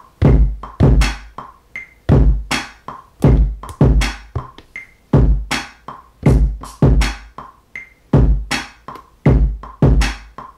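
Looping drum-machine beat of kick and snare hits at a steady tempo, played back from a Native Instruments Maschine Mikro MK3 with the snares just quantized to the grid. Each kick has a long, deep low tail. There are no hi-hats yet.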